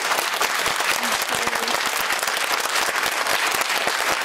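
Studio audience and police officers applauding: steady, dense clapping from many hands, with a few faint voices in it.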